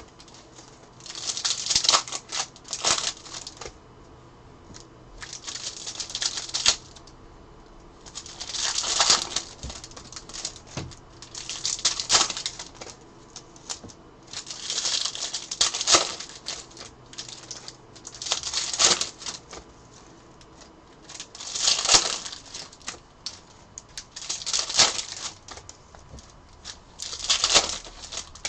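Bowman baseball card packs being torn open one after another: wrappers ripping and crinkling in short bursts about every three seconds, with light clicks and slaps of cards being handled in between.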